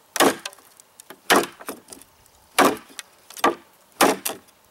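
Large flat-ground Junglas knife striking into a knot in a softwood 2x2 board, sharp wooden knocks and cracks about once a second, about five strikes with smaller cracks between, as the blade smashes the knot apart rather than chopping through the wood.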